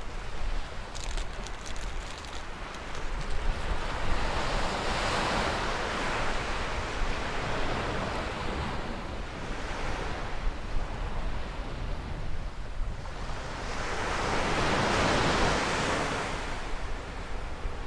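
Surf breaking on a sandy beach: waves swell and wash in about three times, roughly five seconds apart, the last one the loudest. Wind rumbles steadily on the microphone underneath.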